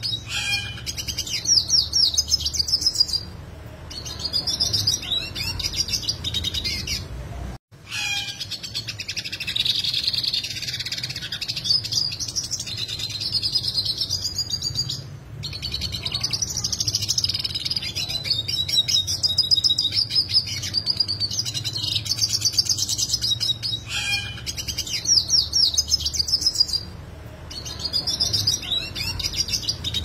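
Yellow siskin singing a long, complex song of fast, sharp trills ("roll tajam"), phrase after phrase with short pauses between them, over a faint low hum. The sound drops out briefly about eight seconds in.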